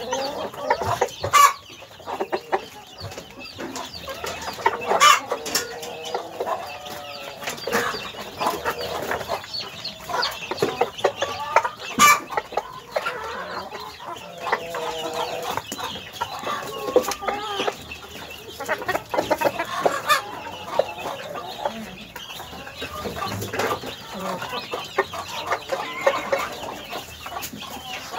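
A flock of domestic hens clucking and calling continuously, many short overlapping calls. A few sharp knocks stand out, the loudest about 12 seconds in.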